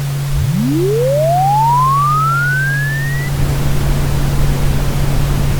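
Cartoon airliner take-off effect: engines spooling up as a single clean tone that sweeps from a deep rumble up to a high whine over about three seconds, then stops. A steady low engine hum runs underneath, and a rumble builds after the sweep ends, like the take-off roll.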